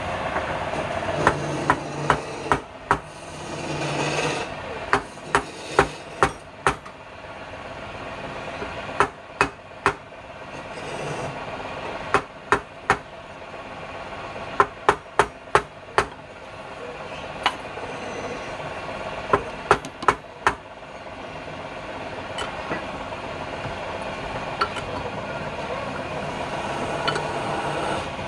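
Sharp hammer-like blows, in quick clusters of two to five, as a block of palm wood is knocked and fixed into the metal cup chuck of a homemade lathe. A steady hum runs underneath. The knocks stop about two-thirds of the way through.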